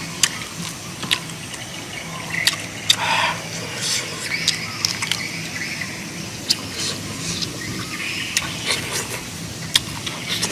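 Eating sounds: scattered sharp clicks and crackles of cooked shrimp shells being peeled by hand, with chewing and lip smacks as the shrimp is eaten.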